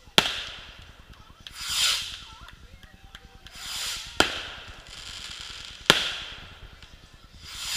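Aerial fireworks: three sharp bangs of shells bursting, one right at the start, one about four seconds in and one about six seconds in, with rising-and-fading whooshes of shells going up in between.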